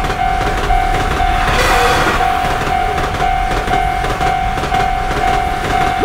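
Japanese railroad crossing alarm ringing its steady 'kan-kan', about two strokes a second, over the running rumble of trains on the track. A louder rush of passing train comes about two seconds in.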